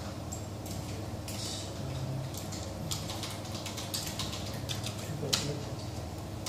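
Scattered, irregular computer-keyboard key clicks over a steady low hum in the room.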